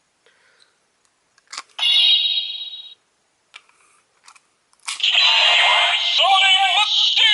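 A few plastic clicks, then a short electronic chime about two seconds in. About five seconds in, a loud electronic tune with a synthesized singing voice starts. This fits a Yo-kai Watch toy reading an inserted Yo-kai medal and playing its summoning song.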